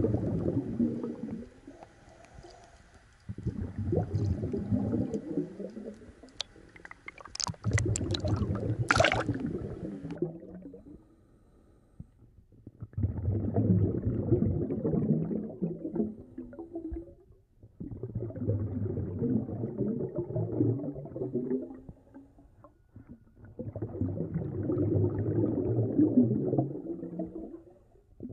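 Muffled underwater sound of water surging and gurgling, swelling and fading about every five seconds with quiet gaps between. A few sharp clicks come about seven to nine seconds in.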